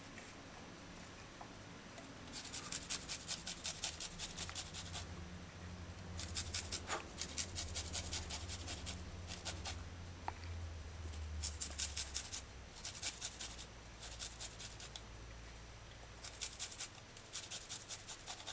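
Garlic cloves rubbed back and forth on a flat metal hand grater to make a purée: quick scratchy strokes about five a second, in several runs of one to three seconds with short pauses between.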